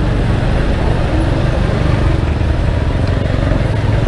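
Motorcycle engine running at low speed with a steady rumble and hiss of wind and wet road on the on-board camera's microphone.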